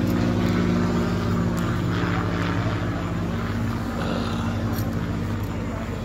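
Engine of an off-road competition buggy running steadily with a low, even drone, easing slightly in loudness over the few seconds.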